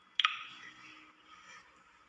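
A sharp double click about a fifth of a second in, fading into a faint hiss.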